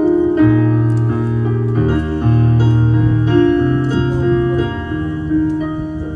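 Slow, gentle instrumental music: held chords over long, steady bass notes that change about once a second.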